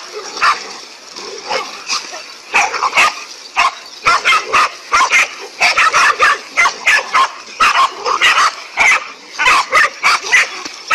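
Dogs barking at a cobra in short, rapid, repeated barks, about two or three a second, some high and yelping.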